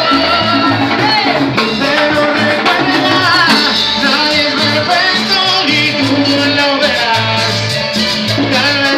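Live Latin dance band playing, with a bass line, drums and keyboard keeping a steady beat, and a man singing into a microphone over it.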